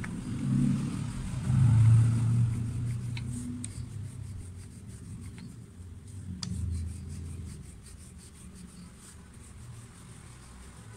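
Hands rubbing flour across the work surface and a wooden rolling pin rolling out paratha dough: a low rubbing rumble, loudest about two seconds in and swelling again near seven seconds, with a few light clicks.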